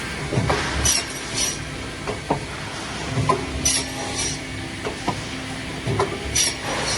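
Pneumatic block cutting machine working, with short hisses of exhausting air about four times and knocks of wood and metal in between, over a steady mechanical noise.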